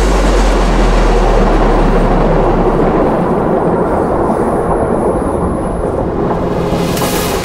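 Saint Petersburg metro train running, heard from inside the car: a loud, steady rumble of wheels and running gear, with a low hum that fades out about three seconds in.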